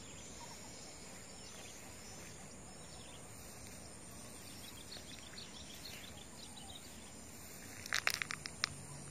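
Steady high-pitched drone of insects in roadside grass, with a quick run of sharp clicks near the end.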